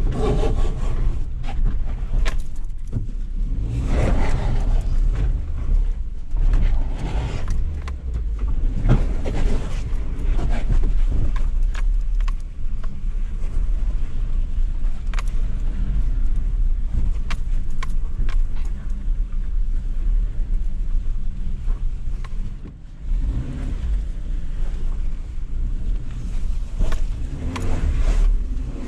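2019 Suzuki Jimny's 1.5-litre petrol four-cylinder engine running at low revs, heard from inside the cabin as it crawls over rocky off-road ground in four-wheel drive, with scattered knocks and rattles over the rocks.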